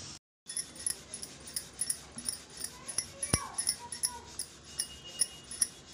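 Wooden rolling pin rolling a chapati back and forth on a countertop, with quick even ticks about three to four a second and one sharper click about three seconds in.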